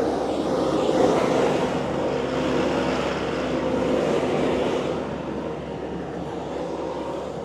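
Engine of heavy equipment running steadily with a constant hum. It gets louder about a second in and eases off near the end.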